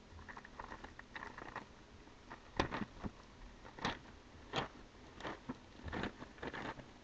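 Plastic courier mailer bag being handled and pulled open by hand: a run of short, sharp crinkles and crackles of plastic, lighter at first and louder from about two and a half seconds in.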